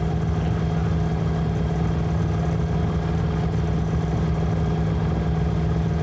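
A boat engine runs at a steady speed with an even, unchanging drone.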